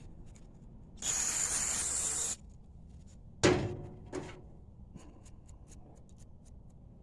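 Aerosol parts cleaner hissing out of the can in one burst of about a second, then two metal clanks from small governor parts being handled, the first sharp and ringing, followed by a few light ticks.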